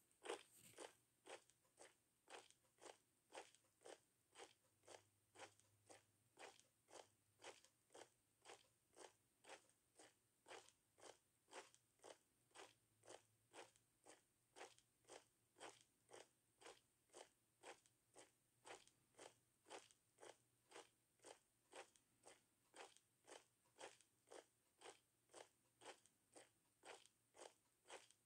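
Siamese cat kneading a fluffy fleece blanket with its front paws: faint, soft crunching strokes of paws working the fabric, steady and even at about two a second.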